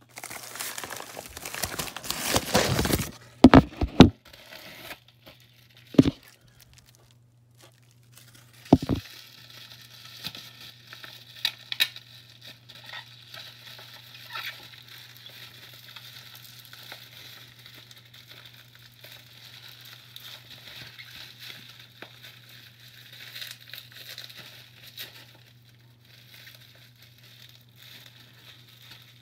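Plastic bubble mailer being handled, with loud crinkling for the first three seconds, a few sharp knocks over the next several seconds, then quieter scattered crinkling and rustling over a steady low hum.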